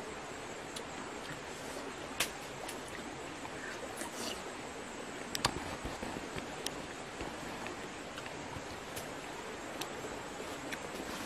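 Steady outdoor background hiss with a few sharp little clicks and taps scattered through it.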